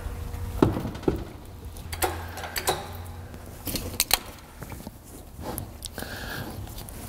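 A handful of sharp, irregular metal knocks and clunks as a manual transmission is worked onto the back of the Mini Cooper S's N14 engine, over a low steady hum.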